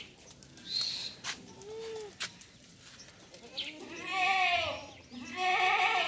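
Goats bleating: a faint bleat about two seconds in, then two loud, drawn-out bleats in the second half.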